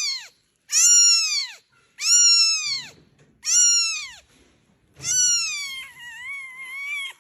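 A cat meowing: four high-pitched meows, each falling in pitch, about one every second and a half, after the tail of an earlier one. The last meow is drawn out and wavers in pitch.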